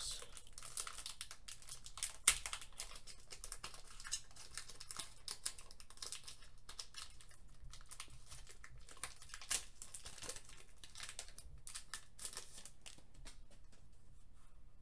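Shiny foil Pokémon booster-pack wrapper crinkling and crackling in the hands as it is peeled open, with a sharp click about two seconds in.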